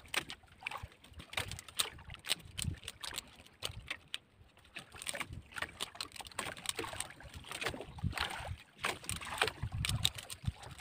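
Water lapping and splashing against the side of a small fishing boat, with irregular rustles and light knocks as nylon handline is pulled and handled over the side.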